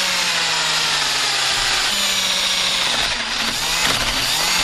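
Power drill running steadily, its bit cutting into a broken screw in a wooden door through a metal guide plate. The motor pitch steps up about two seconds in and wavers after that.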